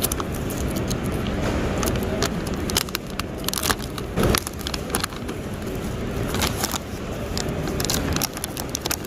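Thin plastic meal bag crinkling and rustling as hands tear open its sealed handle and pull it apart, a dense run of sharp crackles, busiest in the middle, over a steady low background rumble.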